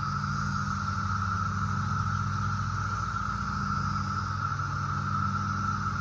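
Periodical cicadas chorusing: one continuous, even high-pitched drone with no breaks. A steady low hum runs underneath.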